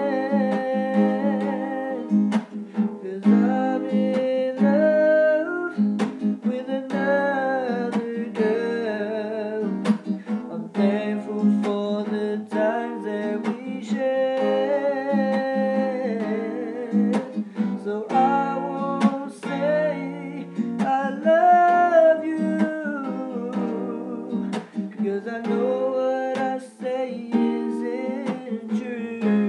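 Acoustic guitar strummed and picked in a slow song, with a man's voice singing wordless, gliding lines over it.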